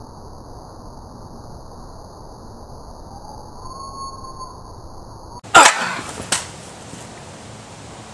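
Steady background hiss with faint high steady tones. About two-thirds through, after an abrupt cut, come two loud sharp sounds less than a second apart, the first much the louder.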